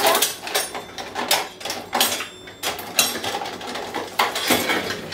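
Rummaging in a kitchen drawer full of pans and utensils: metal pieces clattering and clinking in a string of short knocks, with a crisp bag crinkling.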